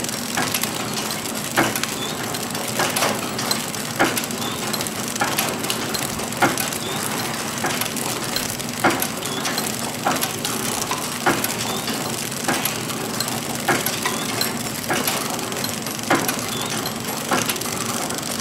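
EntrePack HT-641 flow-wrapping machine running as it wraps items in clear plastic film: a steady rattling, crackling machine noise over a low hum, with a sharp click a little more than a second apart.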